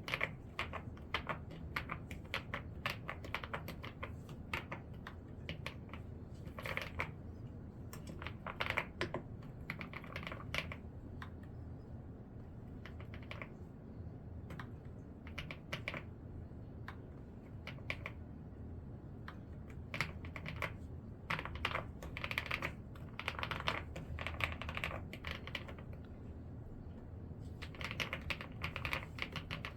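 Typing on an ABKO A108K 'pebble' mechanical keyboard: quick runs of key clicks and clacks, broken by brief pauses between runs.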